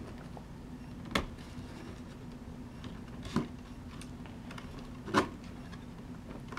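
Three sharp plastic clicks about two seconds apart from the battery-compartment clip of a LiteHawk Sprint RC truck being worked against the chassis, where the clip jams on the side bar.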